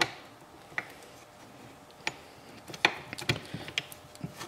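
Light metallic clicks and taps of steel transmission parts as the shift fork rods are fitted through the shift forks beside the gears in a Yamaha YZ125 two-stroke's aluminium crankcase half. A few separate clicks, then a quick run of small clicks about three seconds in.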